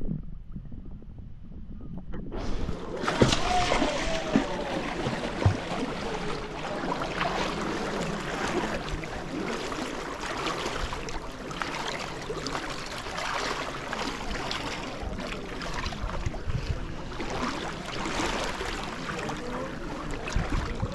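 Steady rushing and splashing of river water, which starts suddenly about two seconds in after a low, muffled rumble.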